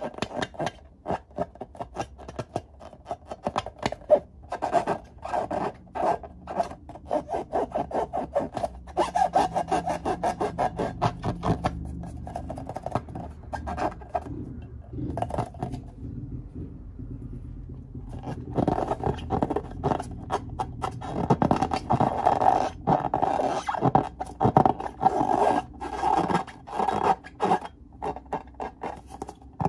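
Fingers rubbing and squeezing filled latex balloons: a rapid, scratchy rubbing of skin on rubber, with a short lull a little past halfway.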